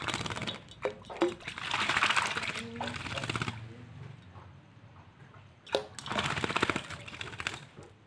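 Hill myna bathing in a pot of water, beating its wings in the water in fast fluttering splashes. It comes in two bouts, the first running about three seconds and the second starting a little before six seconds in.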